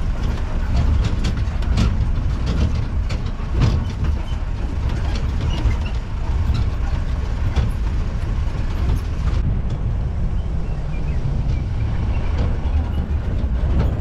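Jeep driving over a rough off-road dirt track: a steady low rumble from the engine and tyres, with frequent rattles and knocks from the body bouncing on the bumps.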